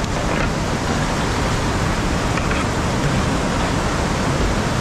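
Whitewater rapids on a steep boulder creek rushing steadily.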